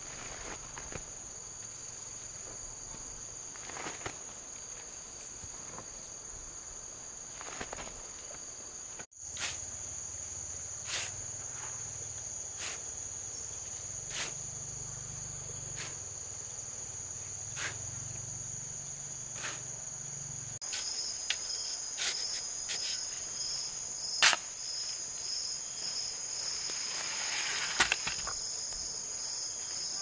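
Steady high-pitched insect chorus, with a hoe scraping and knocking through a heap of dry cement and gravel, a stroke every second or two, and a couple of sharper knocks near the end.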